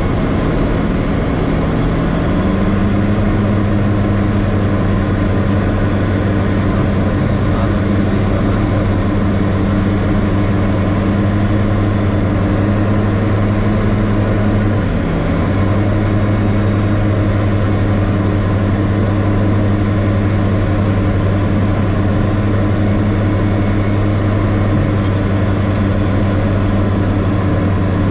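Diamond DA40 light aircraft's piston engine and propeller droning steadily, heard inside the cabin on final approach. The pitch rises slightly a couple of seconds in, dips briefly around the middle, and drops at the very end as the plane comes over the runway.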